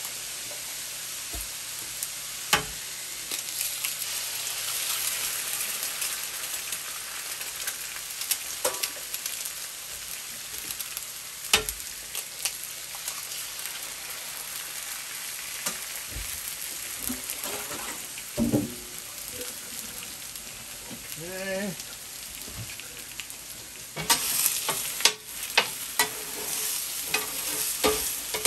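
Oil and food sizzling steadily on a hot steel flat-top griddle as oil and then eggs go onto it, with a few sharp taps. Near the end a steel spatula clacks and scrapes rapidly against the griddle.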